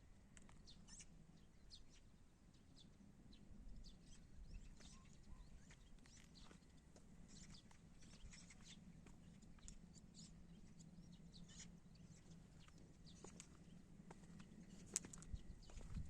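Very quiet outdoor ambience: faint, scattered short chirps and ticks at irregular times over a low steady hum.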